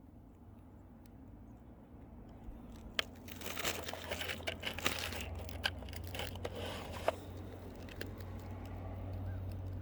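Rustling and crinkling of loose hardware being rummaged through by hand, with a few sharp metal clicks, from about three to seven seconds in.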